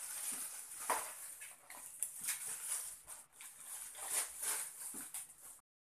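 Thin plastic bags rustling and crinkling as they are shaken open and handled, in irregular crackly bursts. The sound cuts off suddenly near the end.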